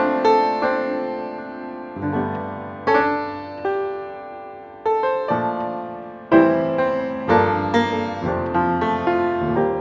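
Background piano music: chords and melody notes struck at an unhurried pace, each left to ring and fade.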